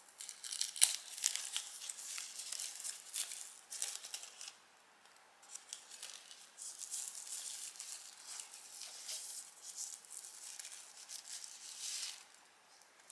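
Plastic packaging crinkling and rustling in irregular bursts as a small electronic unit is unwrapped and handled, with a quieter stretch about a third of the way in.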